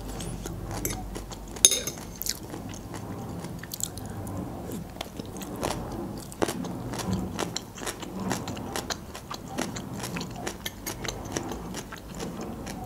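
Close-up chewing and mouth sounds of a person eating stuffed bell peppers, with many small wet clicks throughout and one sharper click about a second and a half in.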